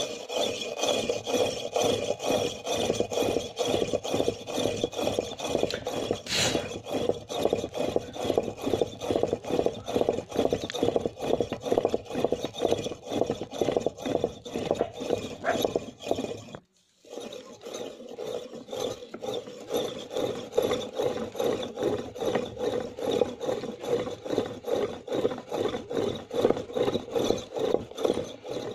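Homemade pump drill with a metal flywheel, its bit a round chainsaw file, grinding into a clay brick. Quick, even pumping strokes give a pulsing rasp, with a short pause a little past halfway.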